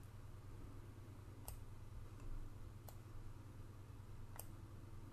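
Computer mouse button clicking three times, about a second and a half apart, over a faint low steady hum.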